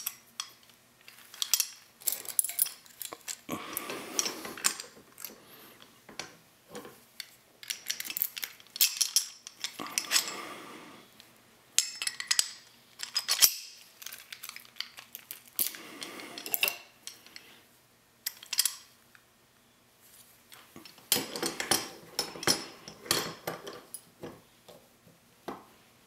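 Irregular metallic clinks, knocks and scrapes as a Rav Bariach padlock is handled and clamped into a small bench vise with brass-padded jaws, with a few longer scraping stretches between quieter gaps.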